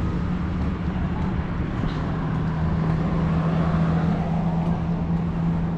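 A steady low mechanical hum over a rumble, as of an engine or motor running continuously.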